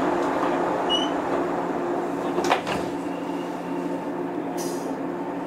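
JR 103 series electric train standing at the platform, its onboard equipment humming steadily, with a single sharp click about two and a half seconds in.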